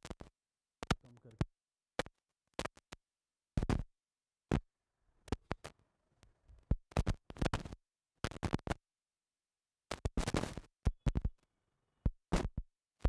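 Irregular short bursts of scratchy rustling noise, a few per second and some longer, with dead silence cut in between them.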